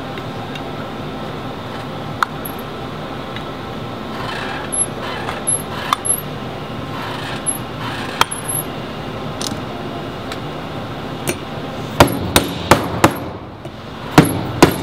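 Metal hammer taps driving a powder seal into the stator of a MAGPOWR Global Series magnetic particle brake, seating it down onto the internal snap ring. Scattered light taps give way, about three-quarters of the way through, to a run of sharper, louder strikes about three a second.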